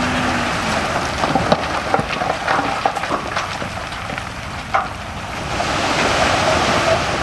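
Loose soil and stones being moved by heavy earthmoving equipment: a steady rushing noise with scattered clicks and knocks of stones.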